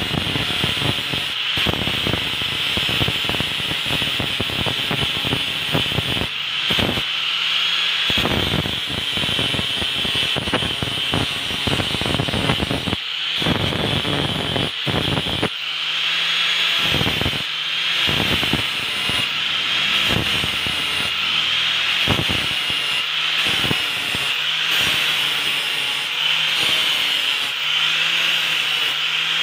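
Angle grinder running with its disc against the steel of a machete blade, grinding the edge. A steady high motor whine over the rasp of the disc on steel, wavering a little as the pressure on the blade changes.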